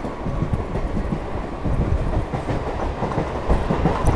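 Chennai suburban EMU local train running at speed, heard from aboard: a steady low rumble of wheels on the rails with irregular knocks.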